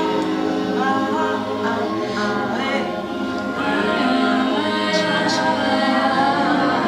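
Several unaccompanied voices singing together in held, overlapping tones that slide and shift pitch, a vocal sound-poetry improvisation, with a couple of short hissed sounds about five seconds in.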